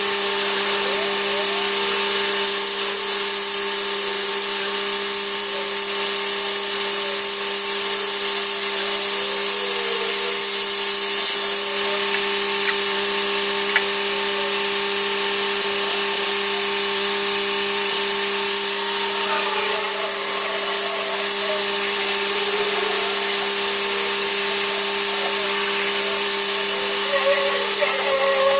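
Hand-held electric rotary polisher running steadily on aluminium checker plate, with the lorry's engine idling underneath, played back sped up.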